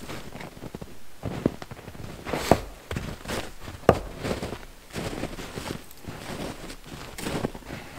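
Footsteps crunching in snow, uneven, with a couple of sharper knocks about two and a half and four seconds in.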